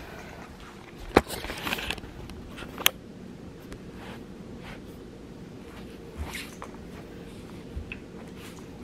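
Camera handling with rustles and a couple of sharp knocks in the first three seconds, then faint, soft footsteps of chunky platform loafers walking on carpet.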